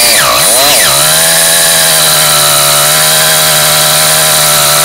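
CR Machine MPG two-stroke motorized-bicycle engine running through its stock muffler: a quick blip of the throttle in the first second, then it holds a steady speed.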